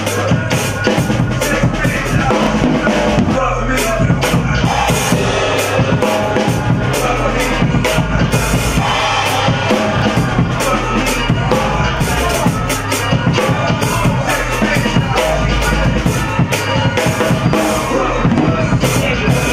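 Acoustic drum kit played with wooden sticks: a busy, unbroken beat on bass drum, drums and cymbals.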